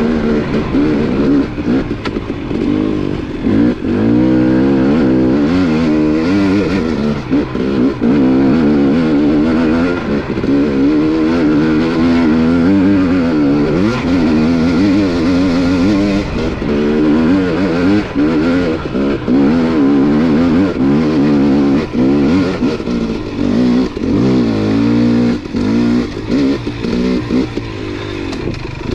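KTM 250 dirt bike engine being ridden, its revs rising and falling continually as the throttle is worked, with short drops where the rider rolls off.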